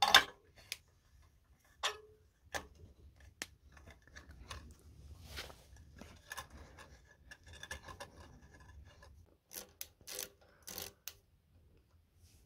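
A compression tester's brass fitting, hose and hand tools handled at a lawnmower engine while the tester is unscrewed: a few sharp metal clicks, soft rubbing in the middle, and a quick run of clicks about ten seconds in.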